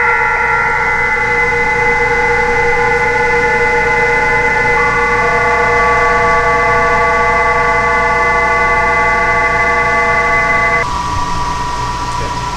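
PSK31 digital-mode signals on the 20 m band, heard through a Yaesu FT-450 HF transceiver in upper sideband: many steady tones at different pitches sounding together. About 11 seconds in, most of them stop and only a few tones remain as the radio moves to the 15 m PSK frequency.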